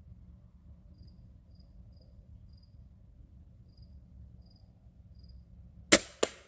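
Crickets chirp faintly, then near the end a Centerpoint Heat 425 crossbow fires with a sharp, loud crack, followed by a second sharp crack about a third of a second later.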